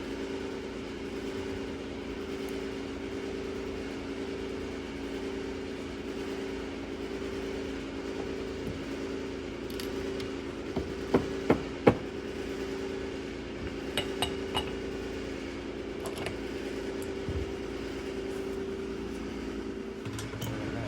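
A steady machine hum runs throughout. Over it come a few sharp metallic clinks of brake parts and tools being handled, loudest about halfway through, with a couple more shortly after.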